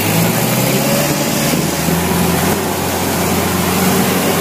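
Engine of an open-sided passenger shuttle running steadily as it drives along, a constant low hum with road and wind noise.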